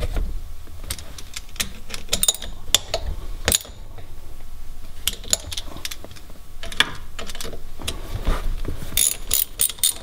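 Hand tools working the shifter's mounting bolts: scattered metal clicks and clinks as the bolts are snugged down by hand with a socket and extension, then a socket ratchet clicking rapidly near the end.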